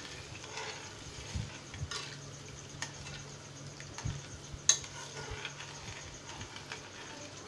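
Steel spoon stirring water in a steel kadhai, dissolving sugar into the tempering water, scraping and now and then clinking sharply against the pan, loudest about four and a half seconds in. A faint steady low hum runs underneath.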